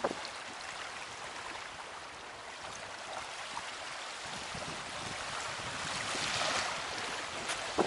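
Small waves washing onto a sandy beach, a steady hiss of surf that swells once about six seconds in.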